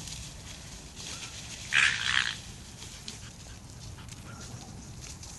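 A dog gives a short double bark, about two seconds in, while playing in the bushes.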